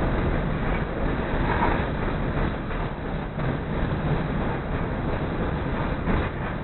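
CTA 2400-series rapid transit car running along the track, heard from inside the car: a steady wheel and rail noise with no break.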